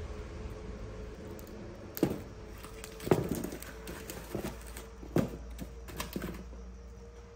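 Burning logs being shifted by hand in a metal basin fire pit: about half a dozen sharp wooden knocks and thuds between two and six seconds in, the loudest about three seconds in.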